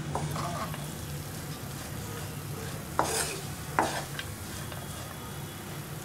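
Wooden spatula stirring leafy greens and grated coconut in a nonstick frying pan over a faint sizzle. Two sharp scrapes or knocks of the spatula against the pan, a little under a second apart, about three seconds in, are the loudest sounds.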